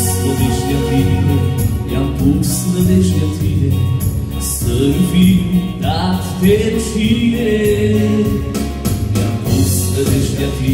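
Male voices singing a Romanian gospel song over a Yamaha Tyros 4 arranger keyboard with a steady beat; the voices come in about two seconds in.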